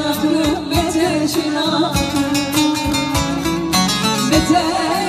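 Loud amplified live music: a singer over a band with a regular drum beat, picked up by a phone's microphone from within the crowd.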